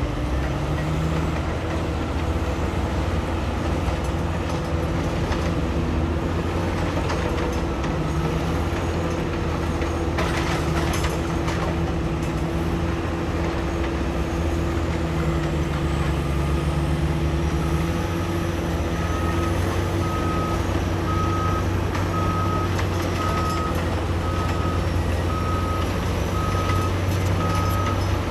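Large diesel engines of heavy mining machinery, a hydraulic excavator and a dump truck, running steadily. From about two-thirds of the way in, a reversing alarm beeps about once a second.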